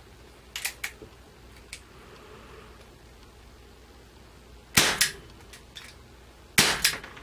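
Crosman 357 CO2-powered pellet revolver firing two shots, sharp cracks about five and six and a half seconds in, each with a short echo in the room. A few faint clicks come before the first shot.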